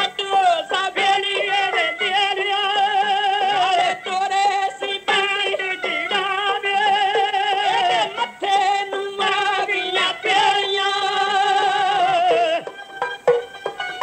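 Punjabi folk singing: a voice holding long, wavering notes over instrumental accompaniment with short taps. The phrases break off about every four seconds, and the singing stops near the end.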